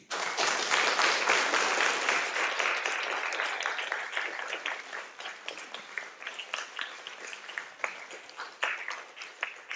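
Audience applauding, starting all at once and loudest in the first couple of seconds, then thinning out to scattered single claps near the end.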